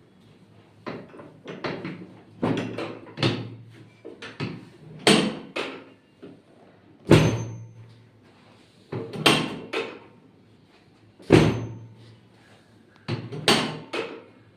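A series of sharp thumps and slaps, about a dozen, irregularly spaced and some coming in quick clusters of two or three.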